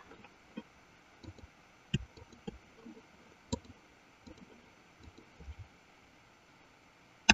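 Quiet, irregular clicks of a computer mouse, a dozen or so spread unevenly, the loudest about two seconds in.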